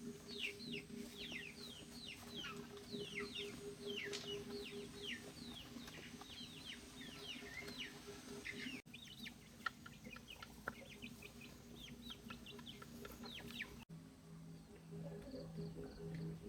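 A brood of chicks peeping: many short, falling chirps overlapping in quick succession, thinning out after about nine seconds, over a low steady hum.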